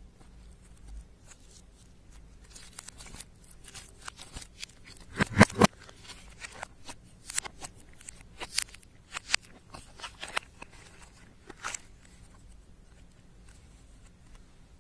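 Slime being mixed and squished by hand, giving irregular sticky clicks and small pops, with a louder cluster about five seconds in.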